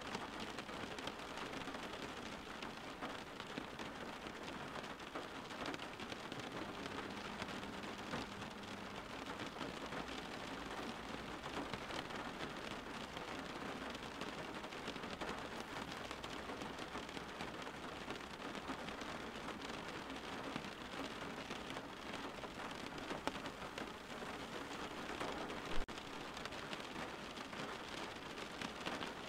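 Steady rain falling, an even hiss of many drops hitting a surface, with one sharp tap near the end.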